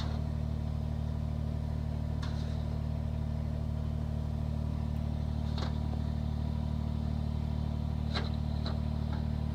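Kubota BX2380 sub-compact tractor's three-cylinder diesel engine running at a steady speed, with a few faint clicks.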